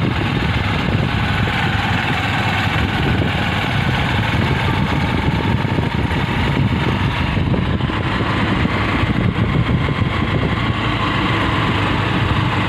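Two-wheeler's small engine running steadily under way, mixed with a constant rush of wind and road noise on the microphone.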